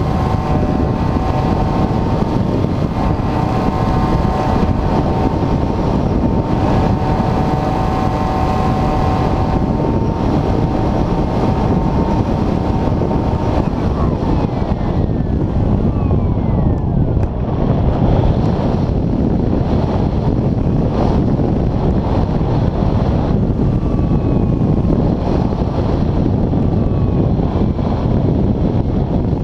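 Airflow rushing over the camera microphone on an Airfield Extreme Surfer 2400mm RC glider in flight. Under it a steady whine, from the glider's electric motor, stops about halfway through, and faint sliding whines follow.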